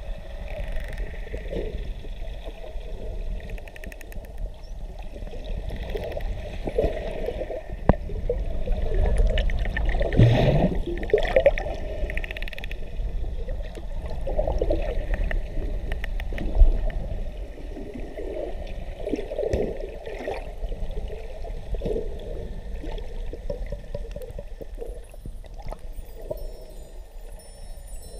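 Underwater water noise in a camera housing: gurgling and sloshing, with wavering squeaky tones and a few clicks, louder for a few seconds around the middle, and a single sharp knock later on.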